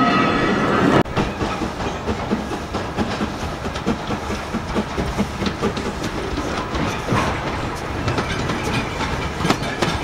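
The end of a rake of passenger coaches running past, wheels on the rails with a faint squeal, cut off abruptly about a second in. Then an LMS Black Five 4-6-0 steam locomotive, No. 5428, approaches slowly, its wheels giving irregular clicks and knocks over the rail joints and pointwork.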